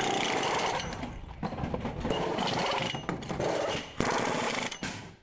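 Pneumatic wheel gun rattling in short bursts as it runs a race car's wheel nut, with a sharp new burst about four seconds in.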